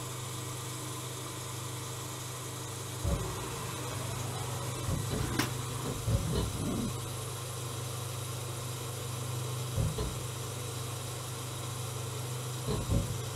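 CNC lathe running, its spindle turning with a steady low hum while a turning tool cuts an hourglass shape into a small metal spacer. A few low thumps a few seconds apart and one sharp click break the hum.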